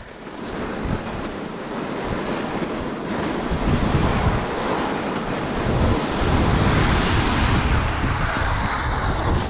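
Wind buffeting the microphone: a steady rushing noise that builds over the first second, with gusty low rumbling that grows stronger from about the middle on.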